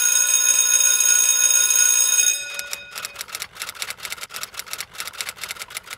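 Title-card sound effect: a bright, steady bell-like ring that stops about two and a half seconds in, followed by a quick run of typewriter key clicks, several a second.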